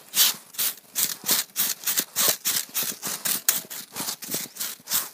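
A broom sweeping the ground in quick, scratchy strokes, about three a second, as the cattle yard is cleaned.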